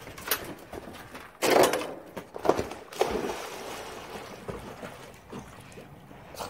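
A Boston terrier jumping into an above-ground pool: one big splash about a second and a half in, a couple of smaller splashes, then water sloshing as it swims.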